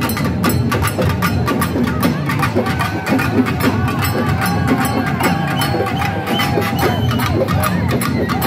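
Festival drumming on two-headed barrel drums: a rapid, steady beat that goes on throughout. A crowd's voices and shouts rise over it.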